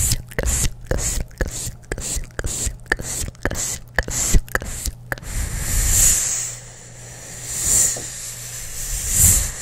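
Close-miked ASMR mouth sounds: quick wet clicks and smacks of gum chewing for about five seconds, then three drawn-out whispered hisses.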